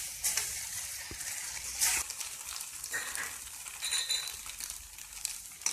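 Cabbage Manchurian balls sizzling in sauce in a metal kadhai, stirred and tossed with a metal spatula that scrapes the pan every second or so.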